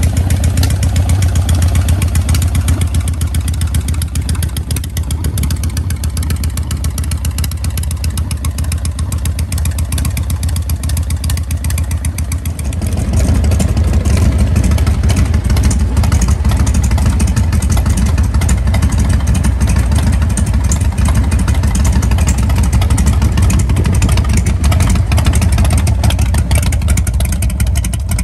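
Harley-Davidson 1340 cc Evolution V-twin engine, fitted with a new cam, running steadily, then getting louder from about 13 seconds in.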